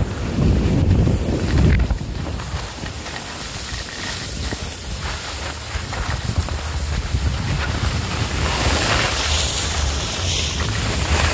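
Wind buffeting the microphone while skiing downhill, with the hiss of skis sliding on packed snow that grows stronger from about eight seconds in.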